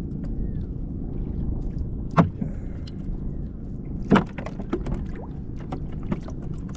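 Two sharp knocks about two seconds apart, then lighter taps and clicks, as a sabiki line is handled in a small fishing boat, over a steady low rumble.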